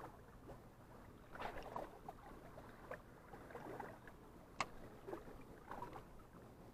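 Faint sea water lapping against shore rocks, with small scattered clicks and one sharp click a little past halfway.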